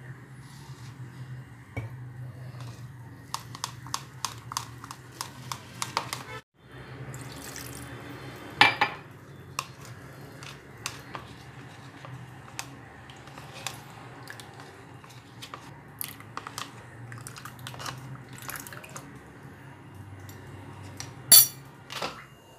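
Metal spoon clinking and scraping in a plastic cup while a sauce mixture is stirred with water, with bottles and utensils knocking on the counter. The clicks come thickest a few seconds in, with a few louder knocks, over a low steady hum.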